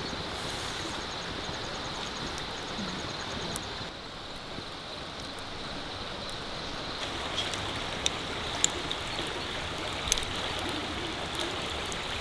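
Steady rush of flowing water, like a forest stream, under a faint steady high whine, with a few light clicks in the second half.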